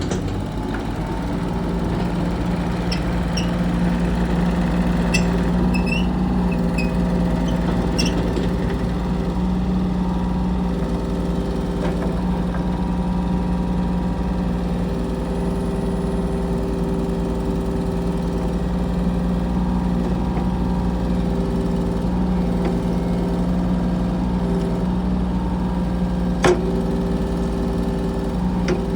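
Kubota U35-4 mini excavator's diesel engine running at a steady speed, with a few short squeaks and clicks, the sharpest near the end.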